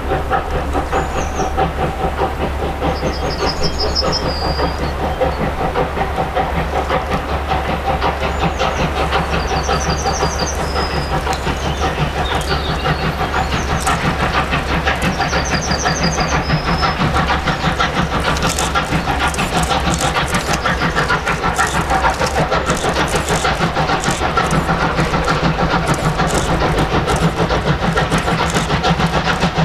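Steam locomotive working a passenger train, its exhaust beats coming in rapid succession and growing louder as it approaches.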